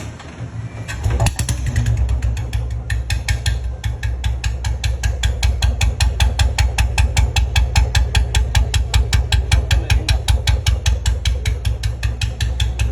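Royal Enfield motorcycle engine catching about a second in and then idling with a steady, rapid thump.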